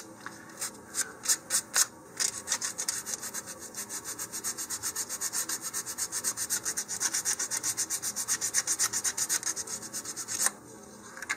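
Sheet of 150-grit sandpaper rubbed by hand along the edge of a paper-covered balsa fin hardened with super glue, rounding it off. A few slower strokes at first, then a fast even run of short scratchy strokes that stops sharply near the end.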